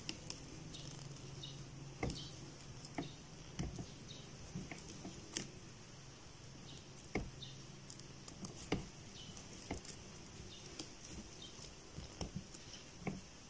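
Crochet hook and t-shirt yarn working single crochet stitches: soft, irregular small clicks and taps as the hook pulls yarn through, with a faint low hum behind that stops about two thirds of the way in.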